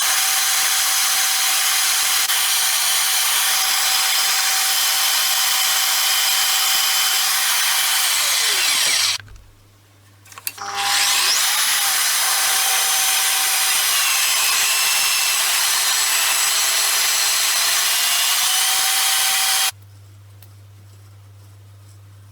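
Electric power tool running against a workpiece. It stops about nine seconds in and starts again a moment later, then cuts off near the end, leaving a low steady hum.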